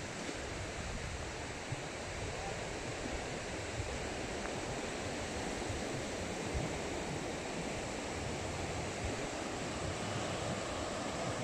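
Surf breaking on a rocky shore, a steady rush of waves, with wind buffeting the microphone.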